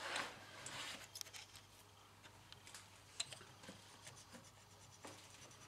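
Faint scraping and scratching of a copper scraper against the aluminium cylinder head's gasket face, working old sealant off the corners, with small scattered clicks.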